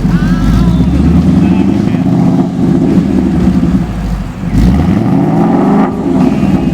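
2015 Ford Mustang engine revving through its exhaust. It runs steadily, eases off briefly about four seconds in, then climbs in pitch as it is revved up again.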